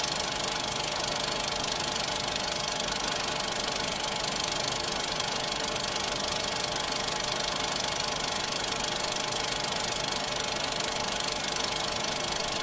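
Film projector running: a steady mechanical whirr without a break.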